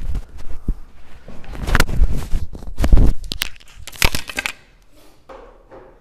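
Handling noise: a busy run of sharp clicks and knocks mixed with rustling, stopping about four and a half seconds in.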